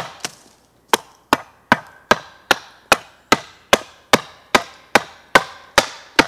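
Hand axe hewing a green birch blank stood on a chopping block: a steady run of sharp chops, about two and a half a second, after a short pause near the start. The axe is trimming away excess wood where the split ran out to the side at a knot, to bring the piece down to a flat blank.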